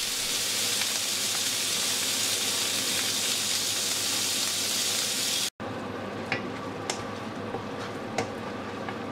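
Carrots and snow peas sizzling in a hot grill pan, a steady hiss. About five and a half seconds in, it cuts to a quieter sizzle with a few small pops as gnocchi fry in a pan.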